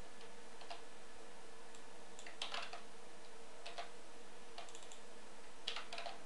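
Scattered clicks from a computer keyboard and mouse, a few at a time with pauses between, over a steady background hiss with a faint hum.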